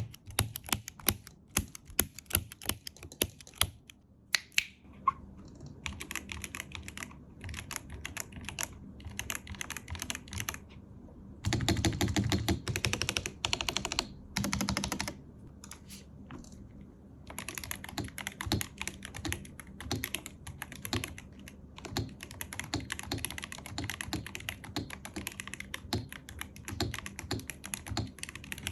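Typing on an ASUS ROG Azoth mechanical keyboard with AKKO Matcha Green Pro switches. It starts with single, separate keystrokes, goes to short bursts of typing, then a louder rapid run of keystrokes for about three seconds near the middle, and after that steady continuous typing.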